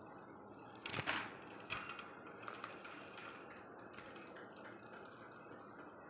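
Sharp metallic clicks and rattles from a wire budgie cage, loudest about a second in, then a few lighter ticks over a steady faint hiss.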